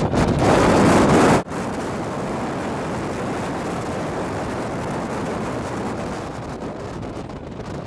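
Roller coaster ride: wind rushing over the microphone and the rumble of the train running along the track. It is loud at first, drops suddenly about a second and a half in, then runs on steadier and quieter.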